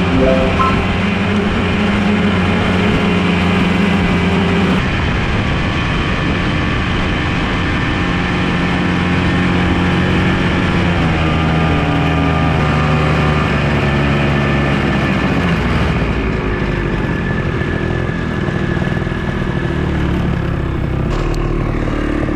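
Ski-Doo Tundra snowmobile engine running steadily as it drives through snow, its pitch shifting up and down with the throttle.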